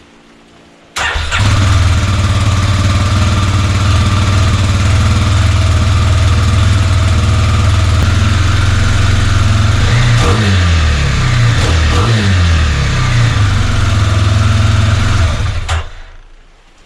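Kawasaki KLX300R's single-cylinder four-stroke engine, on its stock exhaust, starts about a second in and idles. It is revved a couple of times around two-thirds of the way through, then shut off near the end.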